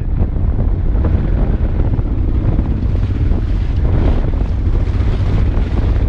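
Honda Transalp motorcycle engine running steadily as the bike is ridden, with wind buffeting the microphone.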